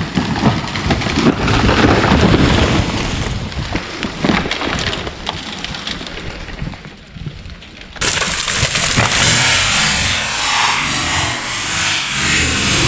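A large tree falling: wood cracking and snapping and branches crashing for several seconds, dying away. About eight seconds in, a cut to a steady rushing noise.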